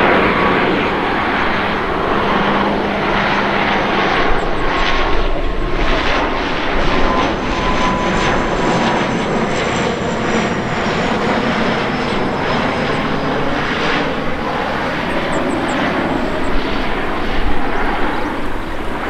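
Airliner's jet engines and rushing airflow as it comes in to land close by. A thin whine drifts slowly down in pitch over the noise.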